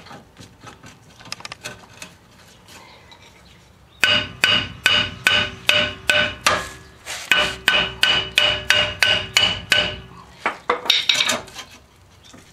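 Hammer blows on a rusted, stuck rear brake drum of a 1987 VW Vanagon, meant to knock it loose from the hub. A few light taps come first. Then comes a rapid run of hard metallic strikes, about three a second, each leaving the drum ringing, and a few weaker knocks near the end.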